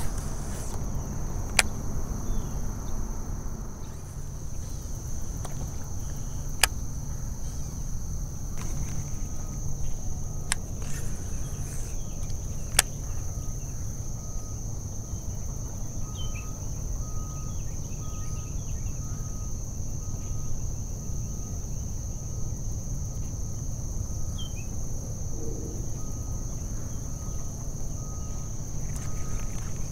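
Steady high-pitched insect chorus from the swamp, over a low rumble of wind and handling noise. There are a few sharp clicks, and from about nine seconds in a faint short tone repeats about once a second.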